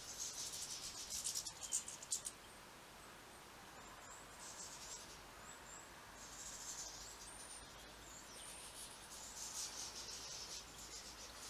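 European goldfinches twittering in quick, high-pitched bouts of a second or two, several times over, loudest in the first two seconds.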